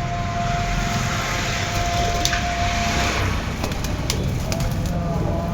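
Pigeons cooing over a steady background of street and traffic noise. A single held tone runs through the first three seconds, and a few sharp clicks come in the second half.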